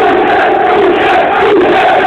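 Large crowd of football ultras chanting together in the stadium stands: many male voices singing a loud, sustained chant in unison.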